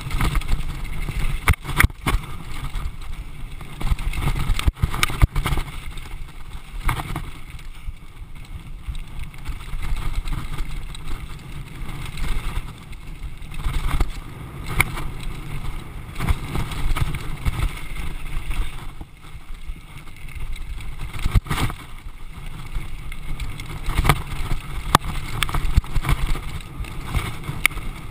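Downhill mountain bike ridden fast over a rough dirt track: a steady low rumble of tyres and wind on the camera, broken by frequent sharp knocks and rattles as the bike goes over bumps.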